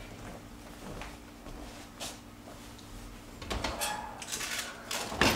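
Oven door being opened to check on baking: a few light knocks and clicks, then a louder clatter near the end, over a faint steady hum.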